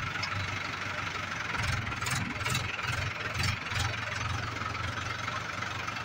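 Tractor engine running steadily while riding, a low pulsing hum, with several sharp rattling clicks a couple of seconds in.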